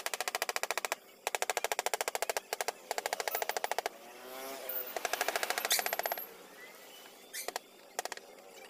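Carving chisel driven into a wooden board by quick, even taps from a mallet, in runs of rapid strikes that stop and start several times.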